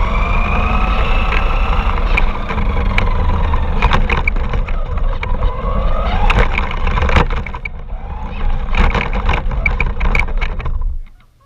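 Radio-controlled car's motor whining, its pitch rising and falling as it speeds up and slows, over a heavy rumble from driving on rough ground, with scattered sharp clicks and knocks. The sound cuts off suddenly near the end.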